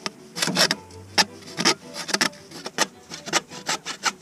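Rasping back-and-forth strokes of a hand tool working a CPVC water pipe, about two to three strokes a second.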